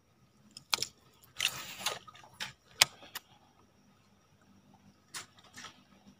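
Baitcasting reel being cast and worked: a short hiss of line running off the spool about a second and a half in, then a few sharp separate clicks of the reel and its handle.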